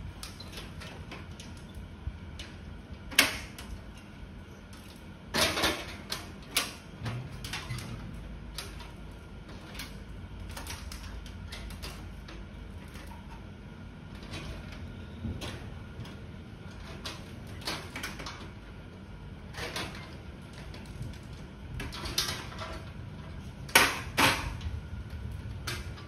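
Irregular metallic clicks and knocks of parts being handled inside an opened gas stove's sheet-metal casing, with a few sharper knocks, the loudest a few seconds in and near the end.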